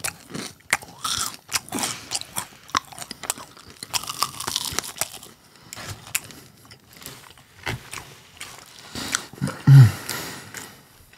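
Crisp fried churros being bitten and chewed close to the microphone: many irregular crunches and crackles. A short low hum near the end.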